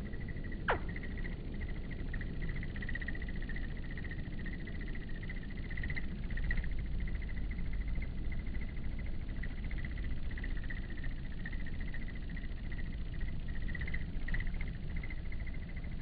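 Steady, finely pulsing insect trill, with a low rumble beneath it. One quick falling whistle comes about a second in.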